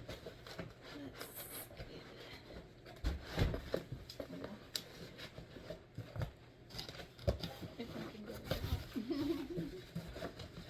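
Cardboard box and its packing being handled and pulled open: irregular rustling and scraping with several dull knocks.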